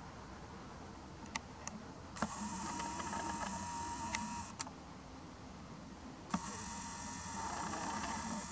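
Nikon Coolpix P900's built-in lens motor whirring in two bursts of about two seconds each, each starting with a click. A couple of small clicks come before the first burst.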